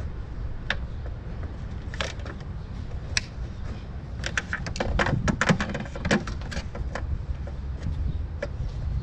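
Hand tools clicking and clattering against engine parts in an engine bay, with a dense run of sharp clicks and small knocks in the middle, over a steady low rumble.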